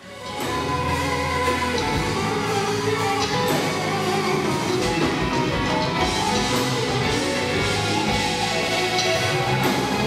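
Live gospel band playing, with electric guitars, drums and keyboard, and a male vocal group singing over it. The music swells in at the start and then runs at a steady, full level.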